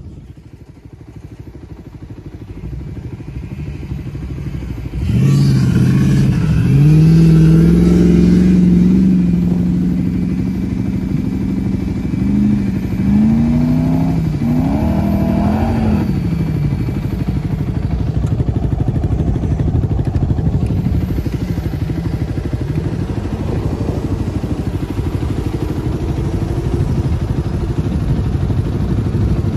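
Off-road vehicle engine revving hard while climbing a sand dune. From about five seconds in its pitch rises and falls several times, then it settles into a steadier run over a low rumble.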